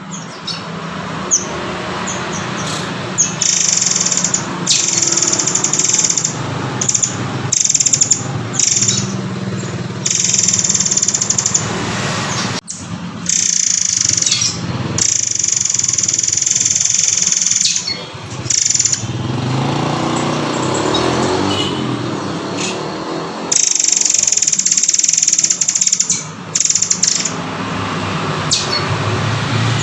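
Murai air (murai kopi) singing in long, high, shrill phrases a few seconds each, with short breaks between them, over a steady low background noise.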